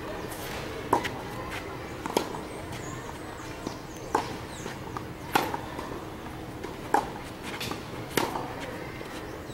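Tennis ball struck back and forth by two rackets in a baseline rally, a sharp pock about every second and a half, six hits in all.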